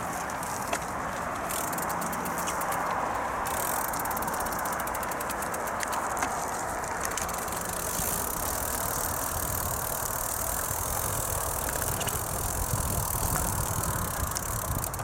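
Bicycle ridden along a dirt forest trail: a steady rush of tyre and wind noise with the bike rattling over the ground, and a low rumble that grows from about halfway.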